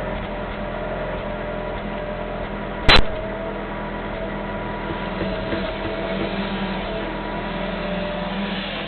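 1998 Honda Civic four-cylinder engine running steadily; the car throws random and cylinder 1–4 misfire codes when cold. About three seconds in there is a single short, loud sharp pop.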